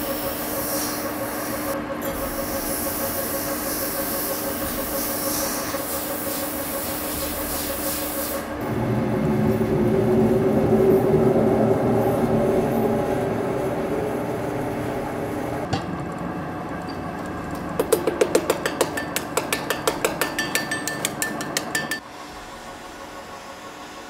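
Metal-spinning lathe turning a large metal disc while a long hand-held spinning tool is pressed against it: a steady running hum with a scraping, rubbing hiss, which turns louder and lower about eight seconds in. Near the end a fast run of sharp clicks, about five a second, lasts a few seconds before the sound drops off abruptly.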